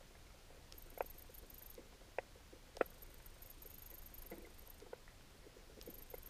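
Sharp clicks and scattered faint ticks heard underwater over a low steady hiss, the three loudest about a second, two seconds and nearly three seconds in.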